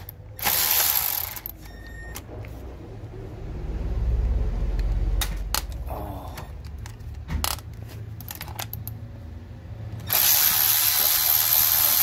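Cordless electric ratchet running in bursts as it undoes the 10 mm mounting bolts of a car's air-conditioning compressor: two short runs near the start and a longer run about ten seconds in, with scattered clicks and knocks from handling the tool in between.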